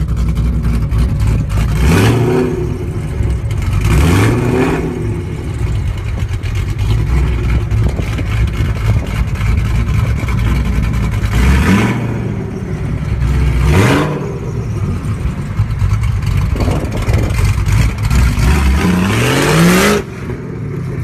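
American V8 muscle car engine idling and being revved in short blips: two quick revs early, two more in the middle, then a longer climbing rev that cuts off sharply near the end.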